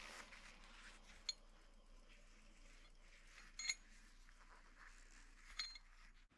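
Faint hiss of a bench grinder's brass wire wheel brushing the threaded steel screw of a vice, with three sharp, ringing metallic clinks about a second, three and a half and five and a half seconds in.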